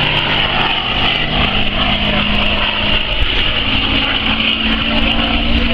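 North American P-51 Mustang's piston engine droning overhead in flight, its pitch rising slightly over the last couple of seconds.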